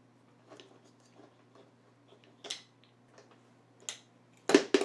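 Light clicks and taps of pliers working the plastic drive gear of a Magic Bullet blade assembly, which is reverse-threaded, as the gear is turned to loosen it. A louder double clack comes near the end.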